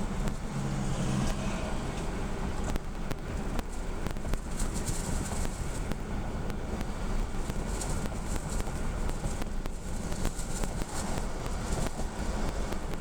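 Lincoln Town Car driving, its engine and tyre noise heard from inside the cabin, with a few brief knocks and rattles.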